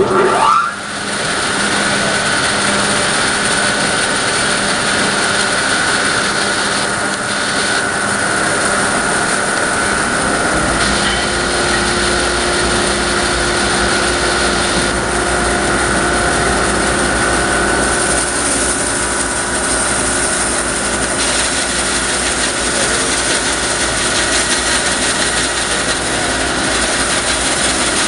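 Bandsaw coming up to speed with a rising whine, then running steadily while its blade rips a board lengthwise from a six-foot log.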